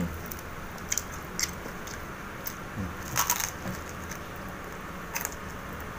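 Close-up eating sounds of crisp deep-fried duck being bitten and chewed, with its dry-fried meat and bones breaking apart. There are several short sharp crunches, the loudest about three seconds in.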